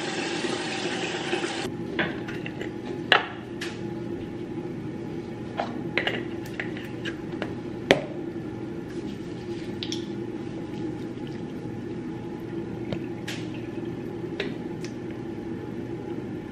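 Water running from a tap shuts off abruptly under two seconds in. Scattered small splashes, drips and sharp clicks and knocks follow while the face is washed, with two louder knocks about 3 and 8 seconds in.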